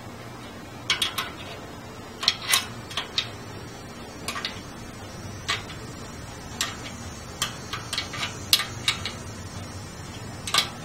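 Metal wrenches clicking and clinking on the nut and steel bracket of a bicycle chain-tensioner (idler) as its 14 mm bolt is tightened: short, sharp clinks at irregular intervals, some in quick clusters.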